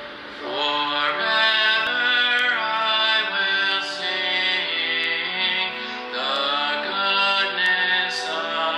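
Slow sacred music of a responsorial psalm setting: a melody that moves step by step over sustained chords. It swells in about half a second in, after a held chord.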